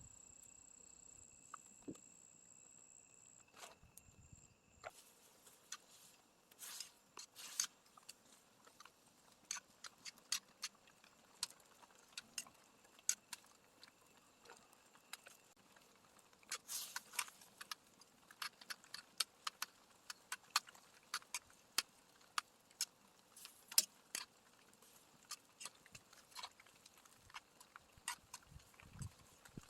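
A cricket's steady high trill for the first three and a half seconds, then irregular sharp clicks and pops scattered throughout, some in quick clusters.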